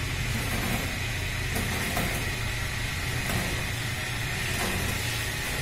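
Ribbon blender running steadily: a motor hum with a steady high whine as the helical ribbon churns detergent powder in a steel trough.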